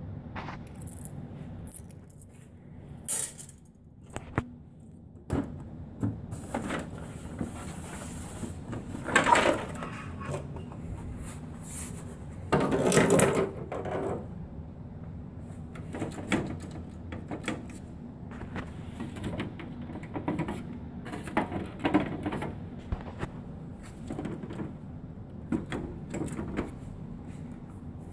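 Scattered clicks, knocks and clatter of hands handling the plastic and metal housing of an HP Designjet Z3100 large-format printer that is being taken apart, with two louder stretches of about a second each near the middle.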